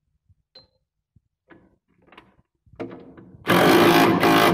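A few light metallic clicks and knocks of bolts and tools being handled, then near the end an impact wrench running down bolts in two loud bursts with a short break between them, tightening the bearing holder bolts on a silo unloader's impeller.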